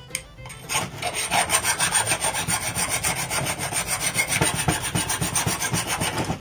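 A hand file rasping back and forth across a metal square bar clamped in a vise, in quick, steady strokes that start about a second in.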